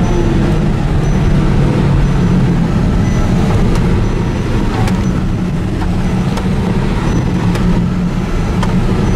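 Car engine and road noise heard from inside the cabin, a steady low hum with a few light clicks.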